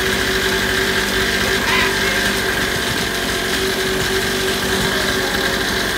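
Small engine of an Orion 27 mini dirt bike running steadily at a constant speed, with no revving.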